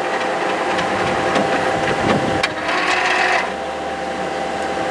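HP large-format inkjet plotter running through its start-up: a steady fan hum with motor whirring and scattered clicks from the mechanism, and a brief louder whirr about three seconds in.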